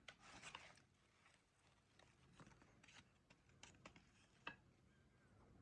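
Near silence with faint, scattered knife taps and scrapes, typical of apples being cut up by hand.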